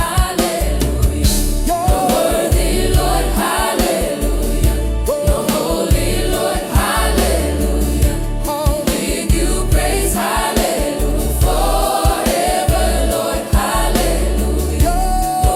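Gospel worship music: a choir singing over a steady bass beat.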